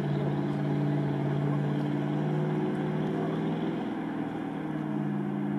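Off-road box truck's engine running steadily as it wades through a flooded track, a constant drone that eases off a little about four seconds in.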